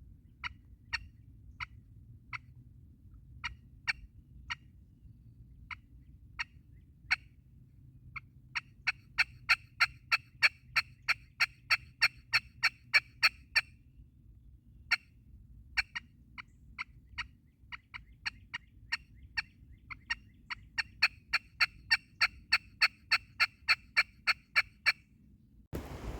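Wild turkey yelps and clucks: a few scattered single notes, then two fast runs of yelping at about four notes a second, one in the middle and one near the end, over a faint low rumble of wind.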